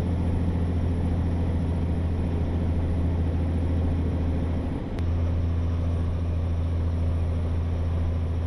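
Steady low drone of the rollback tow truck's engine and road noise heard from inside the cab, cruising at highway speed, with a brief dip about five seconds in.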